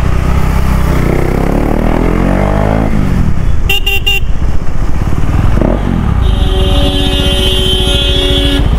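Sport motorcycle engine running in city traffic, its pitch rising and falling with the throttle. A vehicle horn toots a few short times about four seconds in, and a long horn blast of about two and a half seconds sounds near the end.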